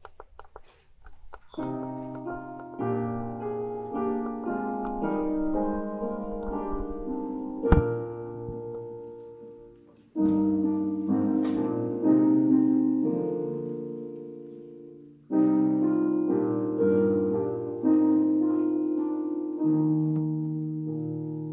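Piano playing slow, sustained chords in a hymn-like passage. Each phrase is struck and left to ring and fade, with new phrases coming in about every two to three seconds in the second half. A few faint clicks come just before the piano begins, about a second and a half in.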